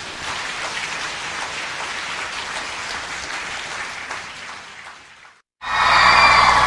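Audience applauding steadily, fading away after about five seconds. After a brief cut to silence, a louder noise of a large crowd comes in near the end.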